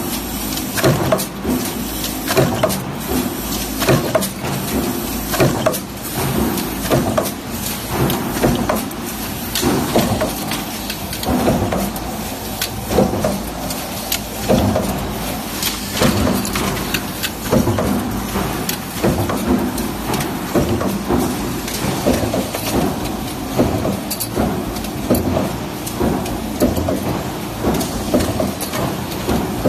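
Cabinet-hinge-making machines running: a stamping press with a progressive die and an automatic hinge assembly machine, cycling with repeated metal clanks about once a second over a steady mechanical din.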